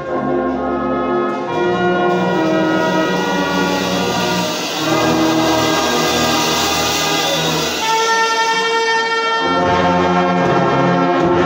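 A brass band of trumpets, euphoniums and tubas playing held chords. Near the end the low brass drops out for a moment, leaving the higher held notes, then the full band comes back in.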